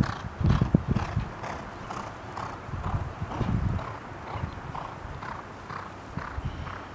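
Hoofbeats of two racehorses galloping on a dirt track, a rhythmic drumming about twice a second, loudest in the first second.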